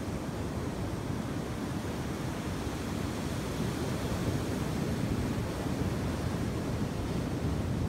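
Steady rush of ocean surf, with wind buffeting the phone's microphone.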